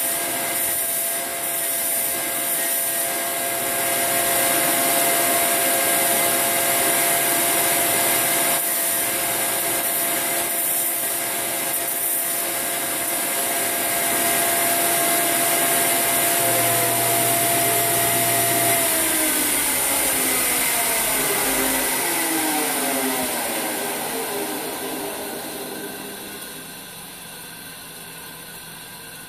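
Belt sander running while a steel CO2-tank bell is pressed against the belt, grinding the paint off. About two-thirds of the way through, the sander winds down: its hum falls steadily in pitch and fades.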